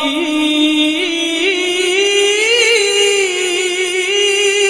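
A man's high voice in Quranic recitation (tilawah), holding one long melodic note of the basmala with quick ornamental trills, rising a little in pitch about halfway through.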